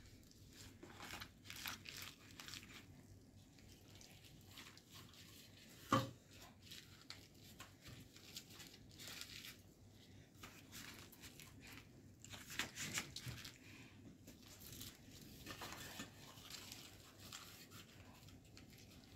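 Faint rustling and tearing of soft flatbreads being torn and folded by hand on a steel plate, with scattered small clicks and one sharp knock about six seconds in.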